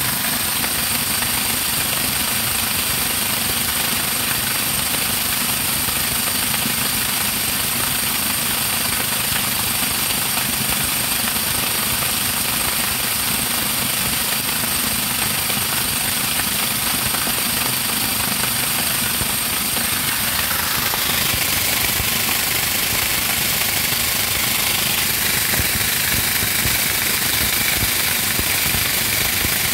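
Homemade motor-driven corn grinder running steadily under load, milling mixed corn and grain into grits. The loud mechanical noise changes slightly in tone about two-thirds of the way through.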